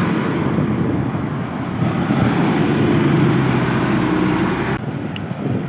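Combine harvester running steadily, its engine and threshing machinery making a dense, loud noise that drops off abruptly near the end.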